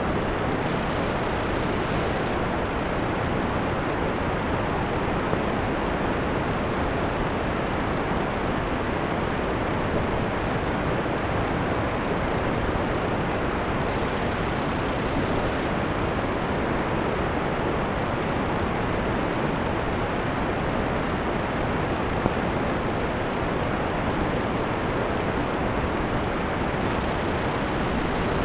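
Steady, even hiss of static with no tone or motor whine in it, of the kind an analog FPV video receiver records on its audio channel.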